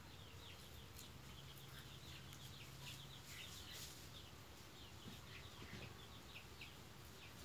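Faint, rapid high peeping of newly hatched chicks, many short falling chirps in quick succession, with a soft low note from the broody hen over the first three seconds.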